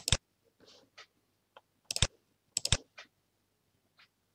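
Sharp computer mouse clicks, each a quick press-and-release: a loud pair at the start, two more loud clusters about two seconds in and just after, and fainter ticks between.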